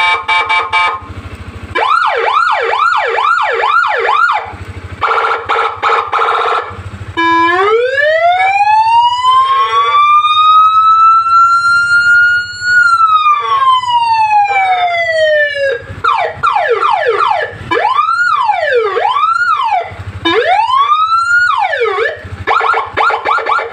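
Electronic motorcycle escort siren module with a 20-watt horn speaker, loud, cycling through several tones. It plays quick repeated up-and-down yelps and a pulsed buzzing tone, then one long slow wail that climbs and falls, then faster whooping sweeps, and ends in pulsed tones.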